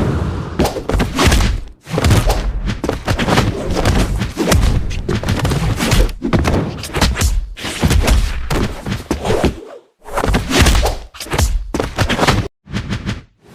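A rapid, dense run of heavy thuds and thunks, added impact sound effects for an animation, broken by brief pauses about two seconds in, near ten seconds and near the end.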